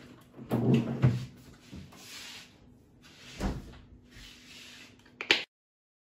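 Scattered rustling and knocking handling noises, loudest about a second in, with a sharp click a little after five seconds before the sound cuts off to silence.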